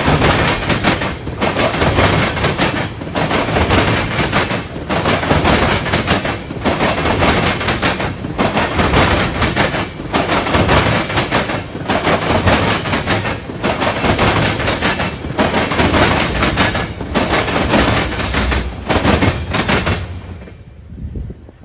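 Freight train of empty ethanol tank cars rolling past at close range: a steady clatter of steel wheels on rail that dips regularly about every second and three quarters as each car goes by. About twenty seconds in the sound drops away sharply as the end of the train passes.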